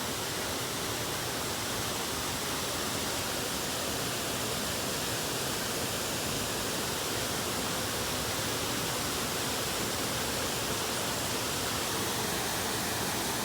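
Waterfall pouring steadily into its pool, a constant even rushing of water.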